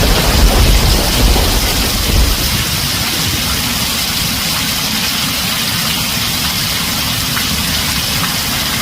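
Heavy rain drumming on a tin roof, a dense steady hiss, with a low thunder rumble dying away over the first two seconds.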